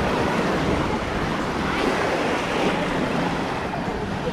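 Surf washing up on the beach, a steady rush of waves, mixed with wind noise on the microphone.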